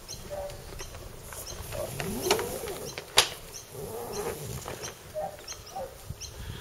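Braided luff-lacing line being pulled through a metal grommet in the mainsail and around the wooden mast: irregular rope rubbing and scraping, with a sharp click about three seconds in.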